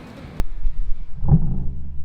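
Background music starts with a sharp click about half a second in, followed by a low, steady bass line with a thud about a second later.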